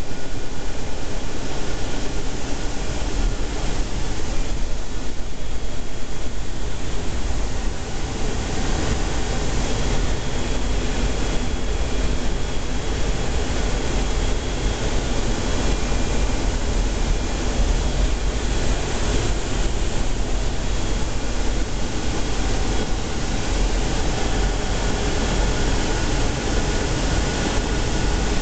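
Steady in-flight noise inside the flight deck of a C-17 Globemaster III at low level: the drone of its four turbofan engines and the rush of air over the cockpit, heaviest in the low end, with a few faint steady high tones.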